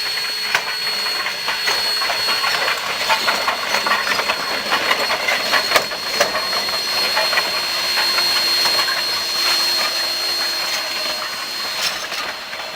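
A train rolling past, its wheels clicking over the rail joints in a steady rush of noise, with a thin, steady high whine over it.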